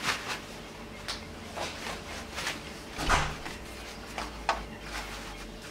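Thin sheets of yufka (Turkish pastry dough) rustling and crinkling in short strokes as they are crumpled and spread into a metal baking tray, with a dull bump about three seconds in.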